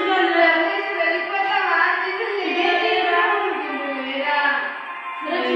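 A high female voice singing a slow melody in long held, gliding notes, with music.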